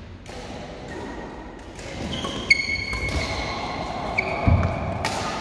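Badminton rally: sharp racket strikes on the shuttlecock every second or so, with court shoes squeaking on the sports mat and a thud of feet landing about four and a half seconds in. The sounds echo in a large hall.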